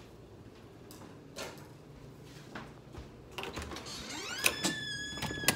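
A door being opened: a squeal that rises and then holds steady through the second half, with a few sharp clicks and knocks.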